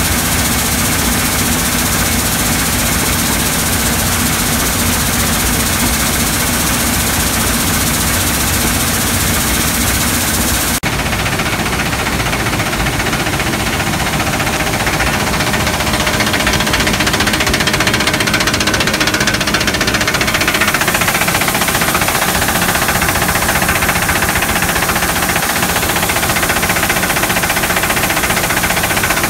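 Vibrating screen running under load, with crushed stone shaking across the screen deck in a loud, steady rattle of machinery. The sound changes abruptly about eleven seconds in.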